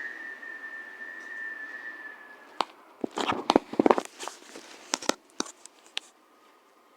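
Front door whistling in storm wind: a steady high tone that fades out about two and a half seconds in. A run of sharp clicks and knocks follows, and a fainter, lower whistle sets in near the end.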